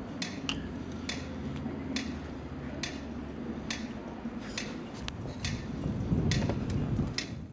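Audible signal of a pedestrian crossing ticking slowly and evenly, about one tick a second, over a low steady traffic rumble.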